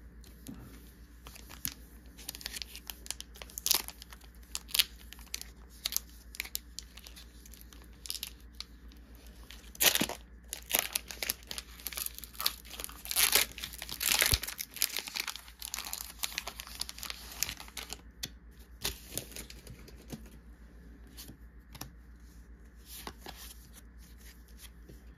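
A foil Pokémon booster pack wrapper being handled and torn open: scattered crinkles, with the loudest tearing and crackling in a cluster near the middle.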